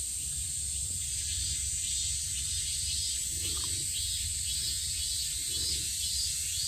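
Steady high hiss of insects buzzing, over a low steady rumble.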